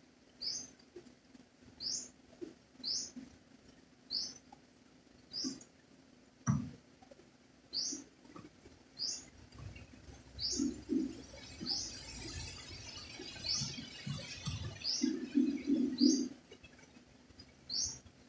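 A small bird repeats a short, rising chirp about once a second. In the second half a dove coos in low bursts of several notes. There is one dull thump about six and a half seconds in.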